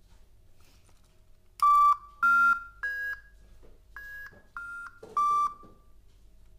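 DigiOwls electronic toy owls chirping a run of six short electronic beeps, each about a third of a second, starting about a second and a half in. The pitch steps up over the first three and back down over the last three, and the first two are the loudest.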